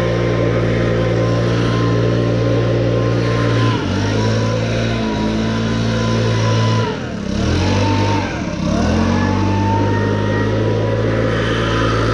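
Handheld leaf blower running steadily, a low hum with a high fan whine on top. Its speed dips and comes back up three times: briefly about four seconds in, then twice more near the middle.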